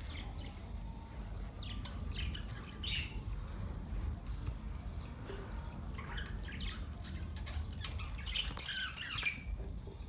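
A flock of budgerigars chirping and chattering in short high calls, in one bout about two seconds in and a longer, busier one from about six to nine seconds. A steady low rumble runs underneath.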